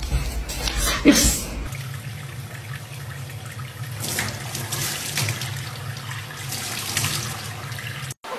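A short clatter about a second in, then tap water running steadily into a stainless steel sink, splashing as a young chimpanzee puts its hands in the stream.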